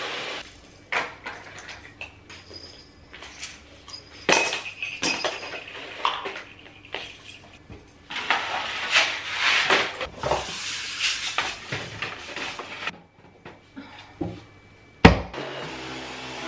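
A cordless stick vacuum cleaner stops about half a second in, and a long run of irregular knocks and clatters follows as plastic baby toys are picked up and dropped into a basket. About 15 seconds in there is one loud knock, and the vacuum starts running again.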